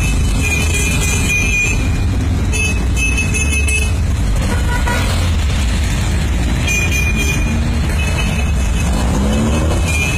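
A line of Volkswagen Beetles driving past, their air-cooled flat-four engines running steadily, with several short horn toots and one engine revving up near the end.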